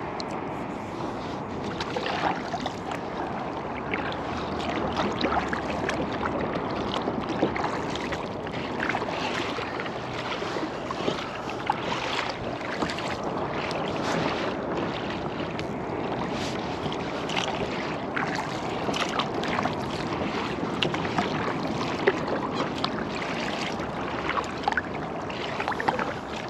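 Water splashing and lapping around a kayak as it is paddled along, with many small splashes and drips throughout.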